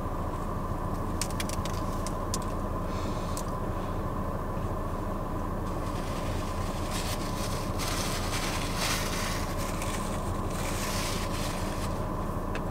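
Steady hum of an idling car heard inside its cabin, with faint clicks and chewing sounds now and then.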